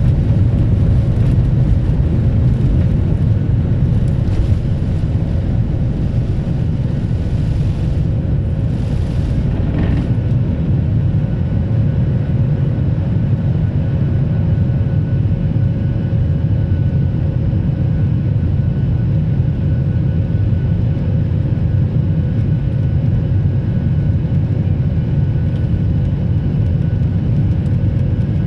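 Jet airliner cabin noise: a steady, loud low rumble from the engines and airflow with a faint constant whine. A higher hiss fades out about ten seconds in.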